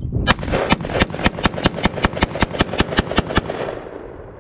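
Gun fired in a rapid string of about fifteen shots, roughly five a second, for about three seconds, then the echo dies away.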